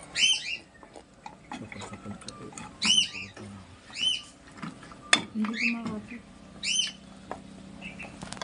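A small bird chirping repeatedly, short high chirps in quick groups of two or three about every one to two seconds. Light clicks and taps of handling sound between them, with one sharp click about five seconds in.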